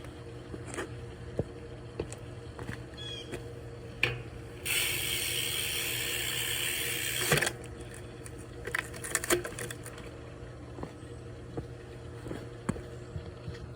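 A 2004 Haro Dave Mirra BMX being handled, with scattered clicks and knocks. About a third of the way in, the rear hub's freewheel gives a steady buzz for nearly three seconds, as a wheel spins freely.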